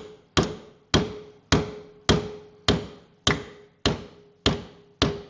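Hammer blows on a steel gate latch bar in a steady rhythm, about two a second, nine in all, each with a short metallic ring: an attempt to hammer the storm-broken bar back into service.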